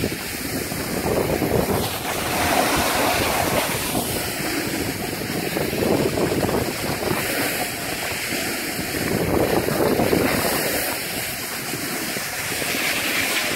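Skis sliding and scraping over packed snow, the noise swelling and easing every few seconds, with wind rushing over the phone's microphone.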